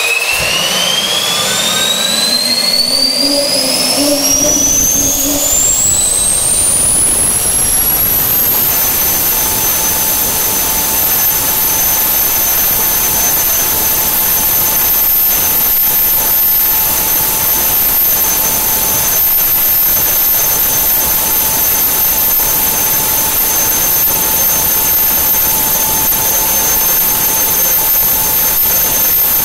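Garrett AiResearch GTP30-67 gas turbine accelerating after its start: a whine climbs steadily in pitch for about eight seconds, then levels off into a steady high whine over a loud rush of air as the turbine holds constant speed.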